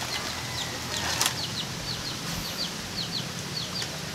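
A bird chirping in short, high, down-slurred notes, mostly in pairs, repeating about twice a second. A single sharp click comes a little over a second in.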